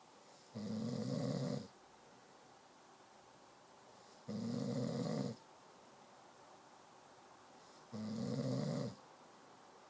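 Snoring during sleep: three loud snores, each about a second long, coming about every three and a half seconds in a regular rhythm.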